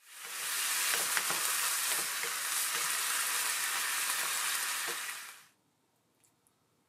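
Mixed ground pork and beef sizzling as it fries in a nonstick frying pan, stirred with a wooden spatula that makes a few faint scraping clicks. The sizzle fades in at the start and stops abruptly about five and a half seconds in.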